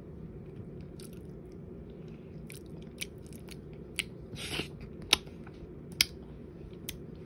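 Wet mouth sounds of someone eating Jello close to the microphone: chewing with a few sharp wet smacks and clicks, and a short slurp about halfway through.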